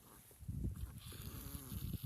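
A dog making a run of noisy, pulsing pulled-in breaths through the nose, starting about half a second in. The owner takes it for reverse sneezing.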